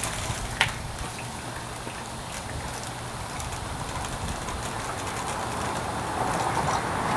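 Water from a garden hose running into the rubber bladder of a water expansion tank as it fills, a steady rushing hiss that slowly grows louder. A sharp click about half a second in.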